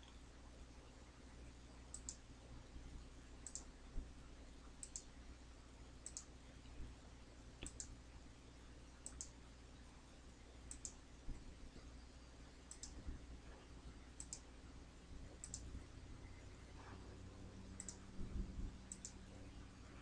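Faint computer mouse button clicks, about a dozen, spaced a second or two apart, over a low steady hum, with a few soft low bumps near the end.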